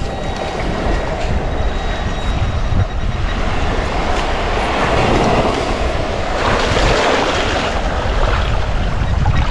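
Shallow ocean surf washing and swirling over sand close to a body-worn microphone: a steady rushing noise with a low rumble. It swells about halfway through as a wave surges in.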